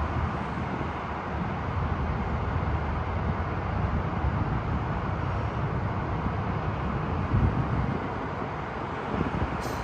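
Steady hum of distant freeway traffic, with wind buffeting the microphone in uneven low rumbles.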